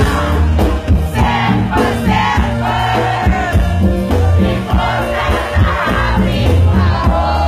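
Live band music played loud, with singing over congas, drums and a heavy bass line.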